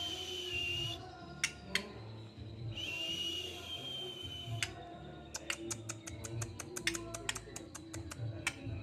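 White-rumped shama (murai batu) singing: long whistled notes, then a fast run of sharp clicks, about five a second, through the second half.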